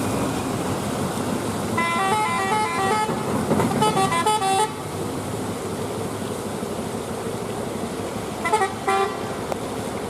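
A vehicle horn sounds in two stretches of stepping, changing pitch, starting about two seconds in and again around three and a half seconds, then briefly near the end. Underneath runs a steady noise of engines and traffic.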